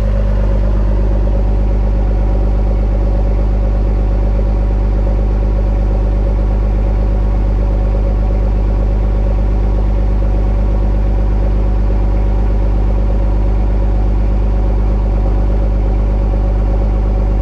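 Cummins inline-six turbo diesel in a Dodge Ram pickup idling steadily while still cold, just after a winter cold start, heard close to the exhaust.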